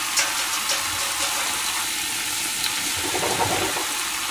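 Cabbage steam-frying in oil under the lid of a frying pan: a steady sizzle and hiss as the cabbage gives up its water, with a few faint ticks and a brief rattle about three seconds in.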